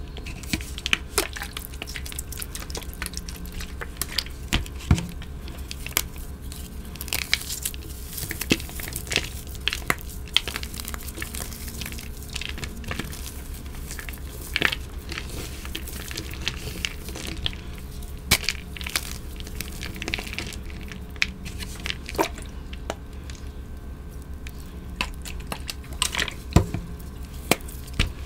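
Hands crushing and crumbling blocks of red-dyed gym chalk that are still wet with dye: irregular crunches and sharp cracks as the blocks break apart, with crumbs grinding on a plastic cutting board.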